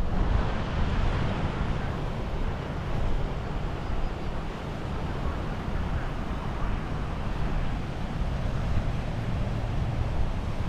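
Surf washing on the shore in a steady rushing noise, with wind buffeting the microphone as a heavy low rumble.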